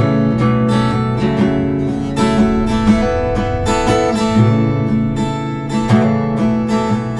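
Acoustic guitar strummed in steady chords, an instrumental passage between sung lines.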